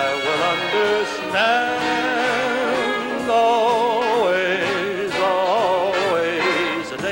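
A male crooner singing a slow ballad, holding long notes with a wide vibrato, over a band accompaniment.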